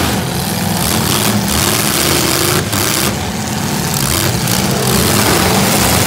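Several V8 demolition derby cars running on open exhaust headers, revving hard as they spin their tyres and push against each other, with a few sharp bangs of cars colliding.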